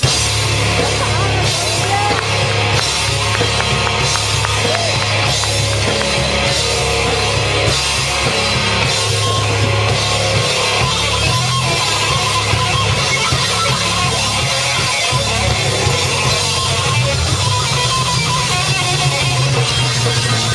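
Rock band playing live and loud, with electric guitar and drum kit, coming in all at once at the start.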